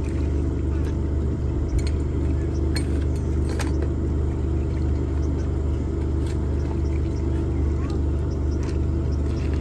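SUV engine idling with a steady low hum, with a few light clicks and knocks from items being set down in its open boot.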